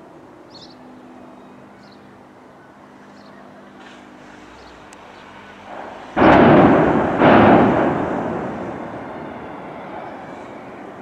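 Explosive charges of a controlled building demolition going off: two loud blasts about a second apart, then the noise dies away slowly over the next few seconds.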